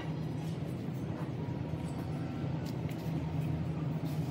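A machine or engine running steadily with a low, even hum.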